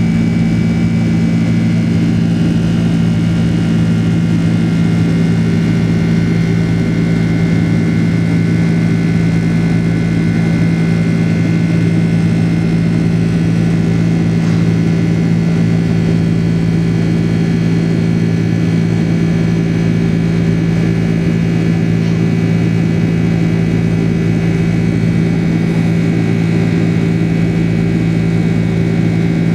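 Cabin noise inside a Boeing 767 airliner in flight: a steady, loud jet-engine drone with a deep hum and faint high whining tones over an even rush of air noise.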